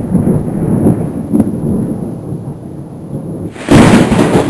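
Deep rumbling explosion sound effect, fading away over about three seconds, then a sudden loud burst near the end.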